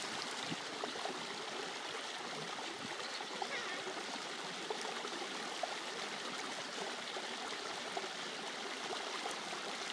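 Creek water running steadily over smooth granite rock, a constant trickling wash.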